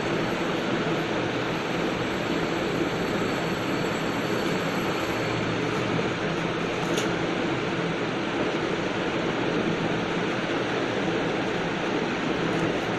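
Steady rushing background noise with a faint low hum, and a faint tick about seven seconds in.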